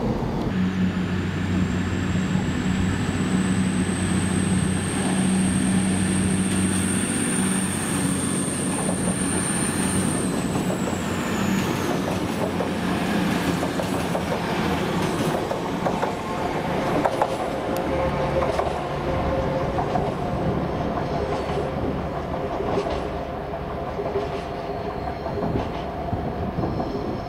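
A diesel train running at a station with a steady engine note. A high-pitched squeal from the wheels on the rails rises slowly and fades out about ten seconds in.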